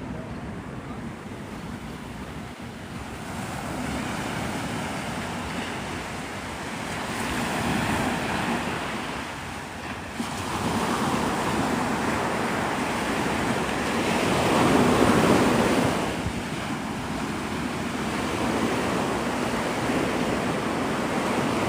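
Gulf surf breaking and washing up the beach, rising and falling in several swells, loudest about two-thirds of the way through, with wind rumbling on the microphone.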